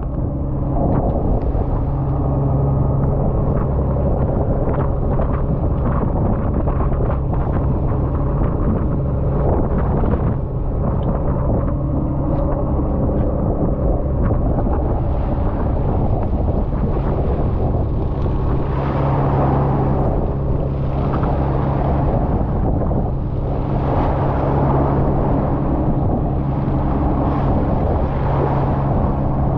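A fishing boat's engine running steadily with a low, even hum, and wind buffeting the microphone in gusts, stronger in the second half.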